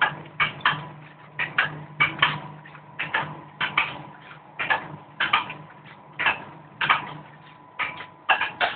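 Automatic vertical sachet packing machine running: a steady hum under repeated sharp mechanical clacks, about two a second in uneven clusters.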